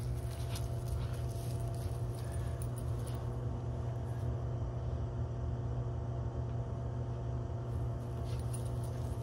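Two Cavalier King Charles spaniels tugging over a toy in dry leaves: light rustling and clinking in the first few seconds and again near the end. Under it runs a steady low hum with a few steady tones above it, from an unseen machine.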